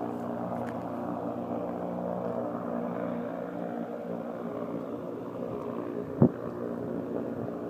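Steady drone of the Goodyear blimp's propeller engines flying low overhead. A single short knock about six seconds in.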